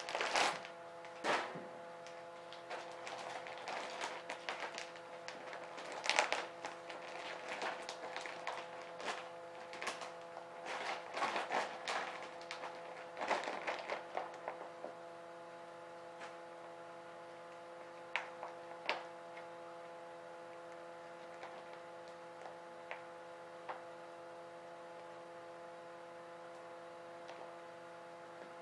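Lynx pelt being pulled and flipped by hand: rustling, scraping and knocking of hide and fur, dense for about the first fifteen seconds, then only a few scattered ticks. A steady electrical hum runs underneath.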